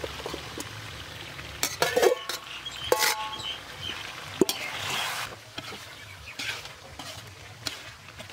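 Pork and radish curry sizzling in a metal pan as a metal spatula stirs it, with sharp clinks and scrapes of the spatula against the pan around two to four seconds in, one of them ringing briefly.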